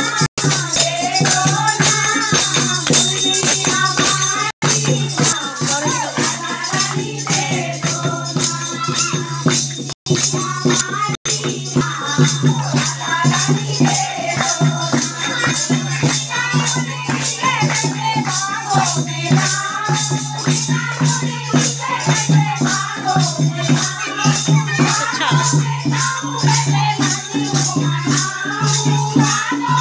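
A group of women singing a Hindi devotional bhajan to Radha and Krishna, with rhythmic hand-clapping and a rattling, jingling percussion beat. The sound cuts out for an instant a few times.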